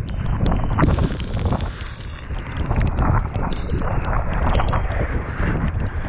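Strong wind buffeting the camera microphone, with many sharp taps and knocks scattered through it.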